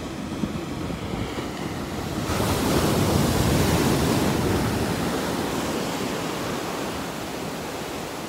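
Ocean surf washing onto a sandy beach: a wave breaks and rushes in about two seconds in, swelling louder for a couple of seconds before slowly easing back.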